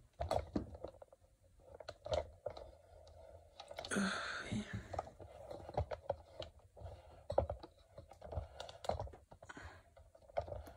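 Irregular clicks, taps and light knocks of small objects being handled, with a short hiss about four seconds in.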